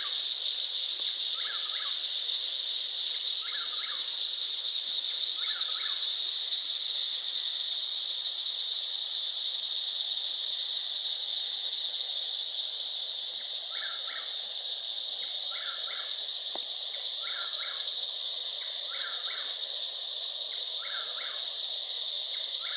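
Steady high-pitched insect chorus, with a short call from another animal repeating about every two seconds. The call stops for several seconds midway, then resumes.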